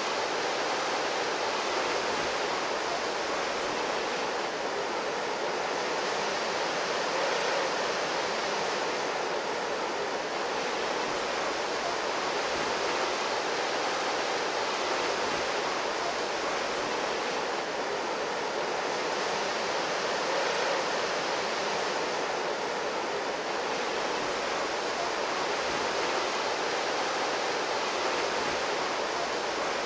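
Anime sound-effect recording of rushing water: a steady, even rush that swells gently every few seconds.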